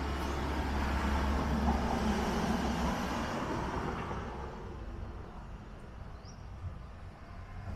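A motor vehicle passing by, a low rumble and road noise swelling over the first two seconds and fading away by about halfway through.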